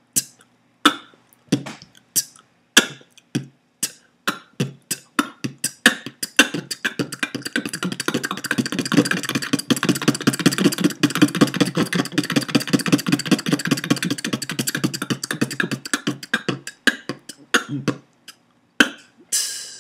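Beatboxing with three basic mouth sounds, bass drum (B), closed hi-hat (t) and K snare, looped as B-t-K. It starts as spaced single strokes, speeds up about six seconds in to a fast, dense run of strokes for about ten seconds, then slows back to spaced strokes near the end.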